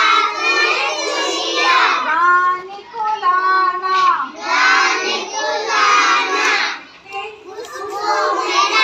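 A group of young children singing a Hindi action song together, breaking off briefly about seven seconds in.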